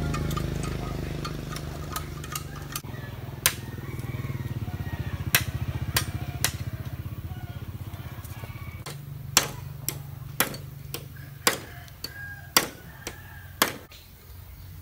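Machete chopping bamboo: a run of sharp single strikes, about one a second, loudest in the second half, over the steady low hum of an engine running in the background.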